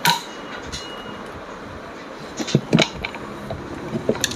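Sharp metal knocks and clicks from parts being handled on an old sewing machine during needle-plate adjustment: one knock at the start, a quick run of three or four clicks about two and a half seconds in, and two more clicks near the end.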